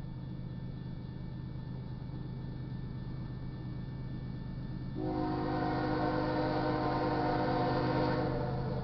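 An approaching GE ES44DC diesel locomotive's air horn sounds one long chord-like blast, starting abruptly about five seconds in and easing off near the end, over a steady low rumble. It is the warning for the grade crossing.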